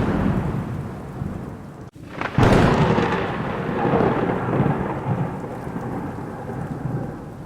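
Thunder rumbling and fading, then a sharp thunderclap about two and a half seconds in that rolls off into a long rumble. Steady rain hiss runs underneath.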